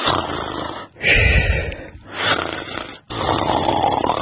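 A person snoring: about four rasping breaths in a row, each roughly a second long.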